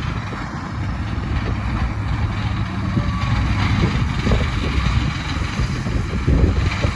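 Tractor engine running steadily under load with a low rumble, driving a bale processor that is spreading straw bedding.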